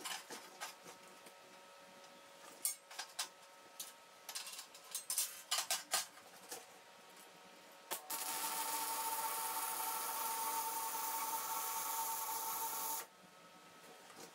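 A few short clicks and knocks as the steel steam-pipe bends are handled and set in place, then a MIG welding arc runs steadily for about five seconds while the pipes are tacked together, and it cuts off abruptly.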